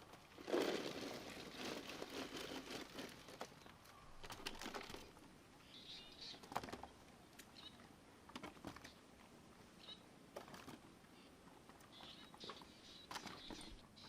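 Rustling and crinkling for the first few seconds, then scattered light clicks and brief high bird chirps.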